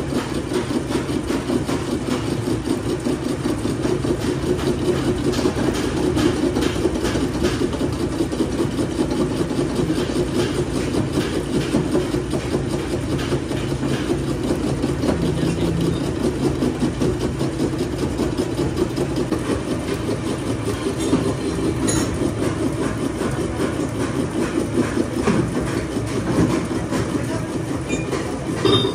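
Workshop machinery running with a steady, dense rattling rumble.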